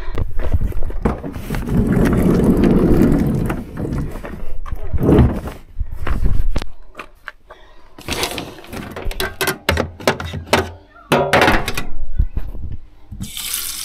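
Rustling and handling noise, then a series of knocks and thuds as a bag is put into the back of a van. Near the end a tap is turned on and water starts running into a stainless-steel sink.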